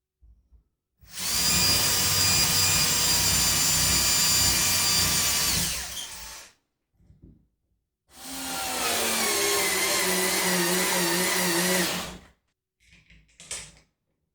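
Electric drill run in two bursts of about five seconds each, its motor whining steadily; in the second burst the pitch drops as the drill slows. A few light clicks near the end.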